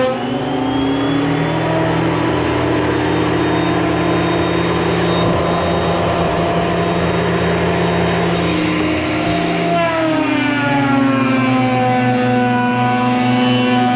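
King Canada benchtop thickness planer's motor whining, dropping in pitch as a rough black ash board enters the cutterhead and cutting with a dense, steady noise for about ten seconds. Near the end the whine rises back to full speed as the board clears the knives.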